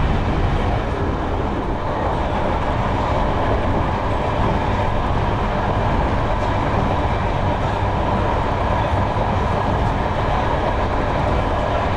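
Steady running noise of a train at speed, heard from on board: wheels rolling on the rails with a constant rumble.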